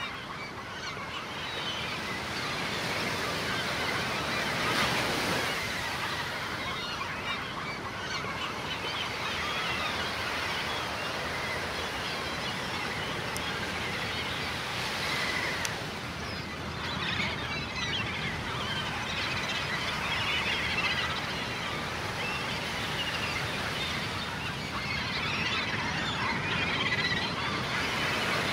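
A large flock of gulls calling over one another, a dense chatter of short cries that swells in places, with surf washing on the shore behind.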